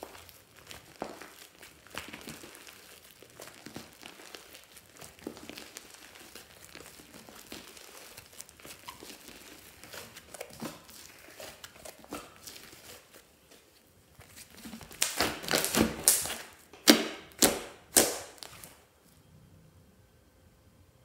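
Fluffy slime being worked by hand: soft, sticky crinkling and crackling with small clicks, then a run of about six louder sticky pops and snaps in quick succession a few seconds before the end.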